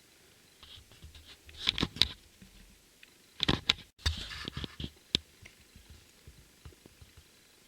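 Handling noises: two clusters of sharp clicks and knocks with some rustling, about two seconds in and again from about three and a half to five seconds in, then a few faint ticks.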